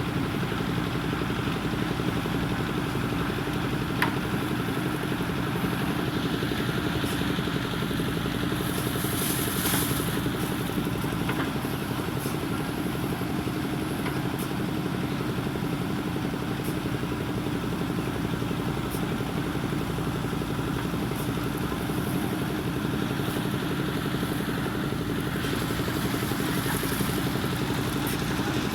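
JCB 3DX backhoe loader's diesel engine running steadily, with a few sharp knocks.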